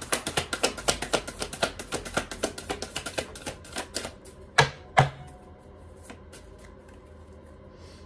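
Tarot cards being shuffled hand over hand: a quick run of light card flicks and slaps, several a second, for the first few seconds, then two sharper knocks about half a second apart, and only faint card sounds after.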